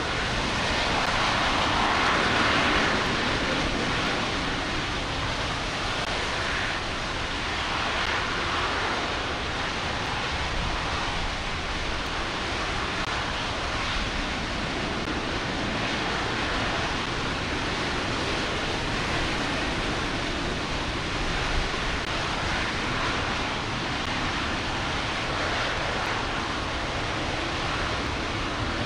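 RS-25 liquid-hydrogen/liquid-oxygen rocket engine firing steadily during a ground hot-fire test, heard as a continuous rushing noise that swells slightly in the first few seconds.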